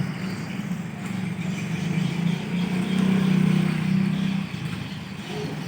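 A motor vehicle engine running steadily, growing louder about halfway through and then easing off.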